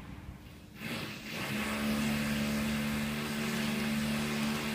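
A steady mechanical hum with a rushing noise, setting in about a second in and holding steady.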